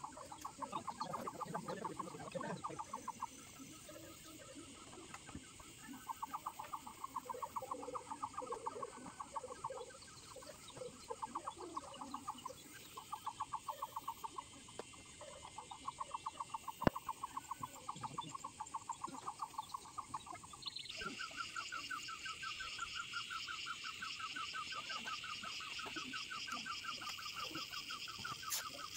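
Animal calls: rapid pulsed trills in repeated bouts of one to three seconds, then a higher, unbroken pulsed trill that starts about two-thirds of the way in and keeps going. A single sharp click sounds just past the middle.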